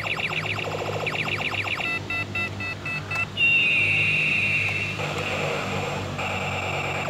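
Electronic toy sound effects: fast chirping warbles, then a run of short beeps about two seconds in, a long high electronic tone a little later, and the chirping again near the end, over a steady low hum.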